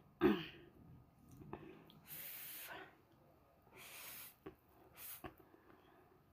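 A person slurping pancit noodles: three hissing, airy slurps as the noodles are sucked in, the longest a little after two seconds, another around four seconds and a short one near five seconds.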